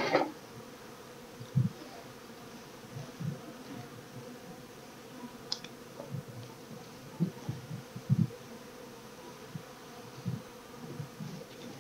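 Honeybees buzzing over an open hive box, a steady hum throughout. A short puff from the smoker bellows right at the start, then scattered low bumps and a click as frames are lifted and handled.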